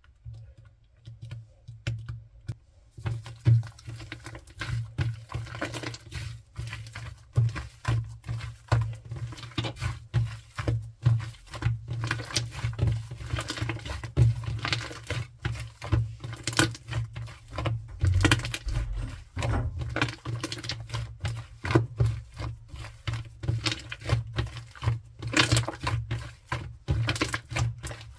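Sky-blue shaving-foam slime being squished and kneaded by hand, with fast, irregular wet clicks and small pops of trapped air.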